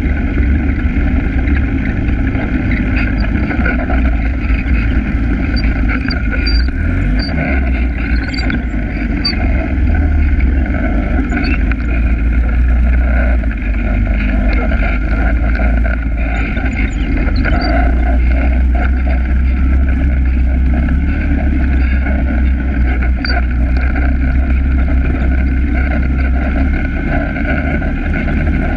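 All-terrain vehicle engine running steadily while riding along a dirt trail, heard close from on board.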